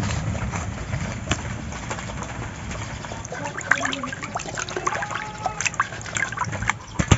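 Water sloshing and trickling as hands rub and wash raw pangas catfish steaks in a metal bowl, with many small sharp clicks and knocks from the pieces handled in the bowl.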